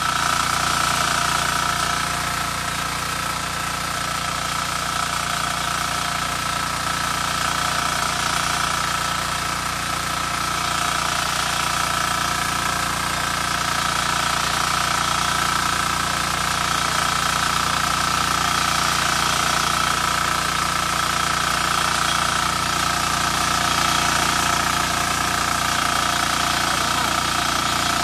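Four-stroke diesel engine of a walk-behind power weeder running steadily under load while its rotary tines till the soil, a constant drone with a steady high whine.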